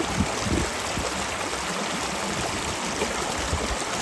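Shallow rocky stream running steadily, with a Labrador wading and splashing through the water.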